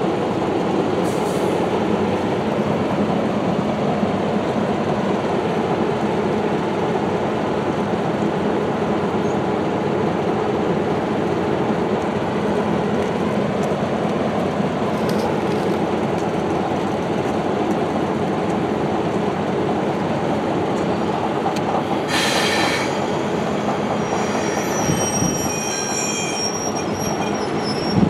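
Diesel locomotive rumbling steadily. Thin, high-pitched squealing joins in over the last few seconds.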